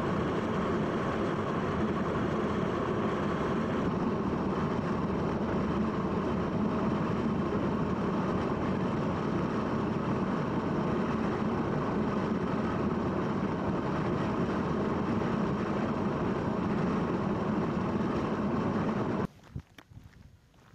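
Steady engine and road noise of a vehicle driving, with no change in speed. It cuts off suddenly near the end, leaving only a few faint ticks.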